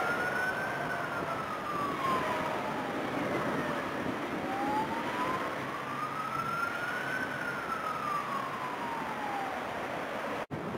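Jet engine roar of an Etihad Boeing 777-300ER's GE90 turbofans as it rolls along the runway, with a siren wailing slowly over it, rising and falling twice. The sound cuts out for an instant near the end.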